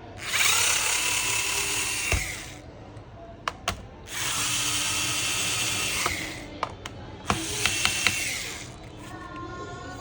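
Electric screwdriver running in three bursts of about two seconds each, with a steady whine, backing out a laptop's bottom-cover screws. Sharp clicks fall between the bursts.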